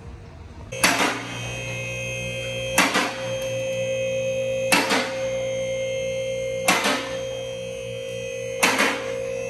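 A two-post car lift's electric hydraulic pump motor starts about a second in and runs with a steady hum as it raises the car. A sharp click comes about every two seconds as the lift's safety locks catch.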